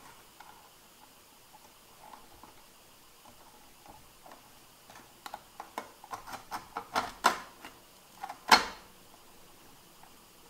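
Small clicks and knocks of the metal angle stop on a bottle glass-cutter jig being handled and set against the bottle neck. Mostly quiet at first, then a quick run of clicks over about four seconds, the loudest near the end.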